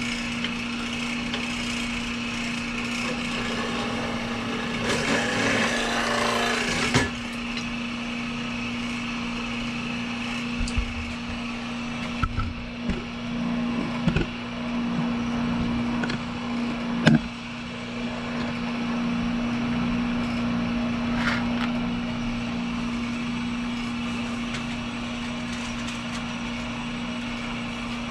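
Old drilling machine running with a steady hum while drilling and counterboring rivet holes in a clutch lining: a harsher cutting sound for about two seconds, about five seconds in, then several sharp knocks spread over the following stretch.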